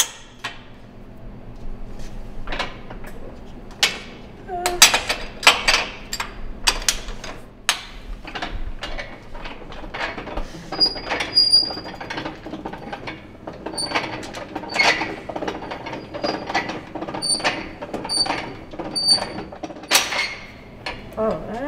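Hand-worked wire-drawing setup in use, sterling silver wire being pulled through a steel draw plate: irregular metallic clicks and knocks from the tongs and bench mechanism, with short high squeaks in the second half.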